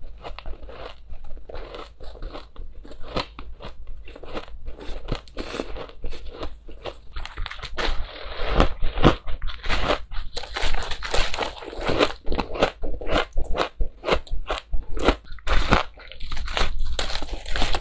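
Refrozen crushed ice being bitten and chewed close to the microphone: a rapid run of sharp, crackly crunches, lighter chewing at first, then louder and denser from about halfway as bites are taken off a block of the packed ice.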